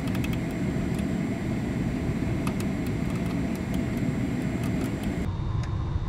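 Gas furnace running: a steady low rumble and whir, with a few faint light clicks as wiring is handled. A faint high hiss drops out about five seconds in.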